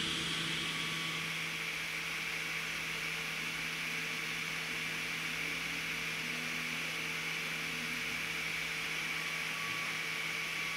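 Steady hum and hiss of running electrical equipment and cooling fans, with no distinct events.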